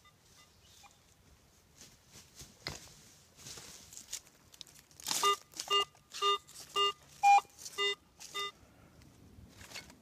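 Garrett AT Pro metal detector sounding a target: seven short, buzzy beeps about two a second as the coil sweeps back and forth over a buried metal object, one beep near the middle higher-pitched and louder than the rest. Before the beeps, a brief rustle of dry leaves.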